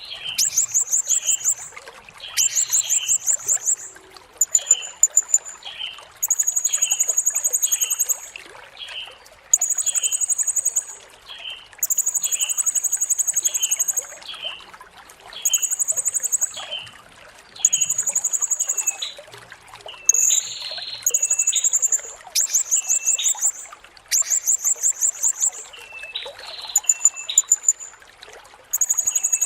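Blue-crowned hanging parrot (serindit) calling: phrase after phrase of very high, shrill buzzing trills, each about a second long, coming every couple of seconds, with short lower chirps between them.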